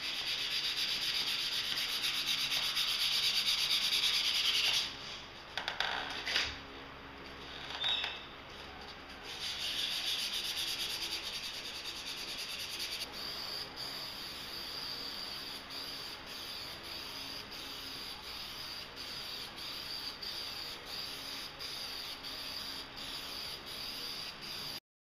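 Fine sanding sponge rubbing back and forth over dried Bondo glazing putty on a painted wooden column. In the second half it gives way to a quieter, steady hiss from an aerosol can of spray primer being sprayed over the sanded patch.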